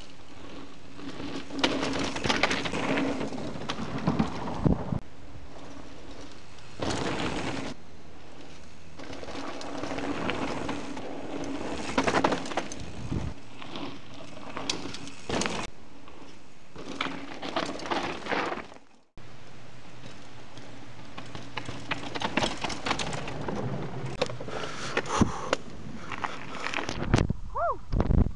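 Mountain bikes ridden down a dirt forest trail past the microphone: several loud stretches of tyre noise on dirt, with sharp knocks over bumps. The sound cuts out abruptly about two-thirds of the way through, then picks up again.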